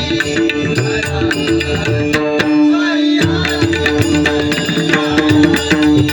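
Instrumental passage of Marathi bhajan music: a steady held drone and melody with hand-drum strokes over it. The low drum sound stops briefly about three seconds in, then resumes.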